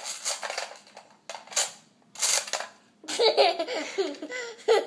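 Person laughing: three breathy bursts of laughter, then voiced, giggling laughter from a little past halfway.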